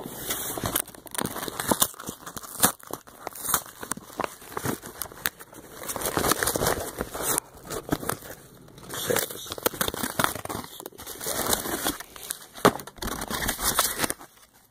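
A Priority Mail package being handled and torn open: irregular crinkling, rustling and tearing of the mailer, coming in uneven spells with brief pauses.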